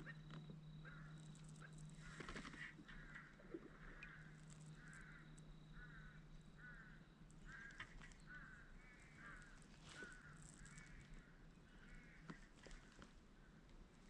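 Faint bird calls: a long steady series of short notes, about two a second, beginning a second or so in and stopping shortly before the end.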